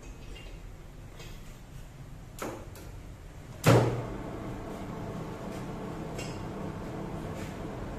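Metal lathe switched on a little past halfway with a loud clunk, then running steadily as its four-jaw chuck spins a motorcycle cylinder head. Before that there are light metal clinks and one knock from the head being seated in the chuck.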